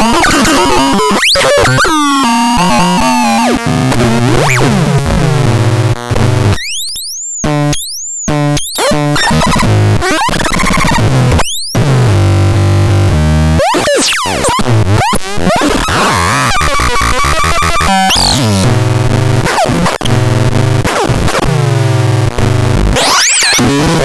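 Synthesizer playing loud, chaotic electronic sounds: tones sweeping up and down in pitch over noise and a low bass note that jumps between pitches. About seven seconds in, the texture thins for a couple of seconds to a few high swooping tones alone.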